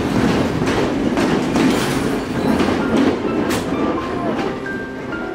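Red passenger train carriages rolling past, their wheels clicking over the rail joints in a repeated clickety-clack. The sound fades over the last couple of seconds as the train pulls away.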